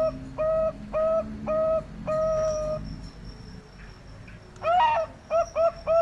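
Captive doves cooing: a rapid, evenly spaced run of short coo notes, a longer held note about two seconds in, a pause, then a quick rising call near five seconds and more fast notes. A faint steady high-pitched tone runs underneath.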